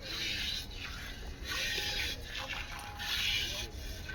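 A rhythmic scraping or swishing sound, one stroke about every second and a half, each lasting just over half a second.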